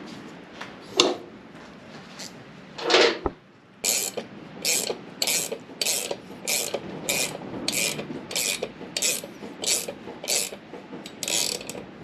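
Ratchet spanner clicking in an even series of strokes, about one every half second or so, from about four seconds in. It is winding the nut of a threaded-bar puller that draws a new wheel bearing into the hub, and it turns smoothly without binding. Before the ratcheting starts there are a couple of scraping knocks as the tool is handled.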